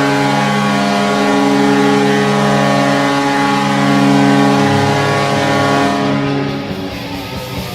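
NHL arena goal horn sounding one long, loud chord-like blast, with a lower note joining about five seconds in; it fades near the end.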